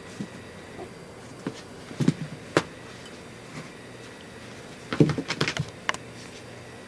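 Quick light taps and knocks from play with a cat teaser on a carpeted floor: a few about two seconds in, and a louder flurry around five seconds in. The cat teaser toy and the cat's paws make these sounds, over a steady low room hum.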